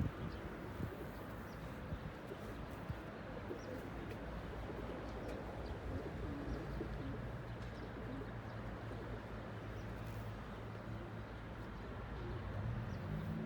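Pigeons cooing, with faint chirps of small birds over a steady low hum.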